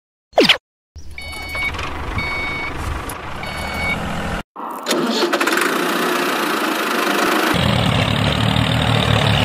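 A short falling groan-like sound, then a tractor engine sound running, with three short beeps in its first few seconds. It breaks off for a moment about four and a half seconds in, then goes on, turning deeper and heavier about seven and a half seconds in.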